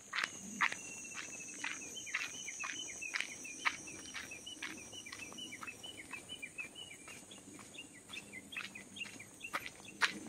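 Footsteps crunching along a gravel path, about two steps a second, while a bird calls in a rapid run of short chirps. A thin high whine fades out about halfway through.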